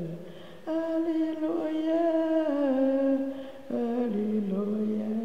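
Church congregation singing a hymn in Arrernte in long, slow held notes that step between pitches. New phrases begin about a second in and again near the four-second mark.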